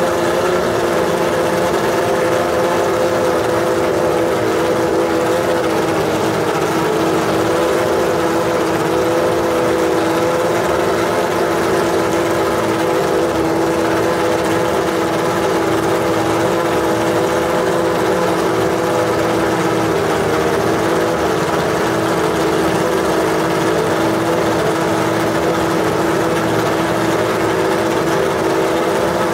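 McLaren MP4/5 Formula 1 car's Honda V10 engine idling steadily at a high, even pitch, its note holding with only slight wavers.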